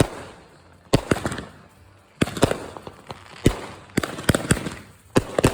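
Fireworks going off in a rapid series of sharp bangs, about ten in all, with crackling and echoing tails after several of them. Bangs come about a second in, two close together past the two-second mark, and a quick cluster in the last second and a half.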